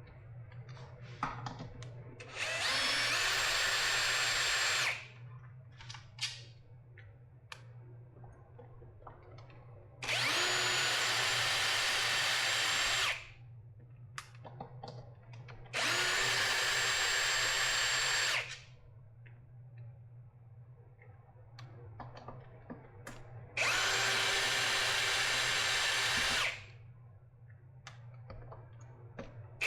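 Electric drill running in four bursts of about three seconds each, spinning up quickly and then holding steady, with small clicks and handling between bursts: screws being driven out of a battery pack's casing.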